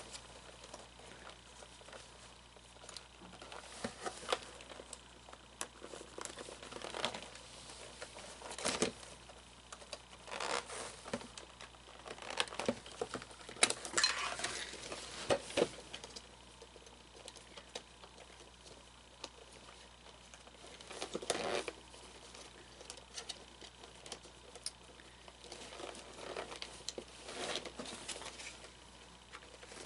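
Cloth rustling and scraping with scattered light clicks and knocks, in irregular bursts, as tight pants are tugged up over an animatronic figure's plastic body.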